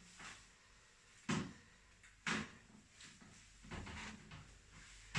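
Two short thuds about a second apart, from a chiropractic spinal adjustment thrust on the treatment table, then a fainter, longer rustle near the end.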